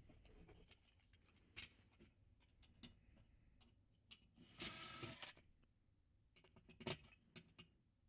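Faint clicks of a Phillips screwdriver and plastic parts being handled while screws are backed out of a glove box latch, with a brief scraping noise about halfway through.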